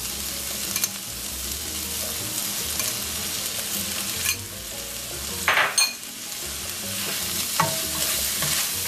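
Black bean and corn mix sizzling in an oiled stainless-steel skillet while tomato sauce is spooned in and a wooden spatula stirs it. A few utensil clicks and scrapes against the pan, the loudest a short ringing clink about five and a half seconds in.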